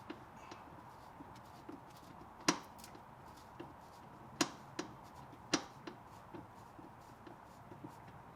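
Scattered sharp clicks and taps of a small hand screwdriver working the little Phillips screws out of plastic undercarriage trim, about five distinct clicks over a few seconds.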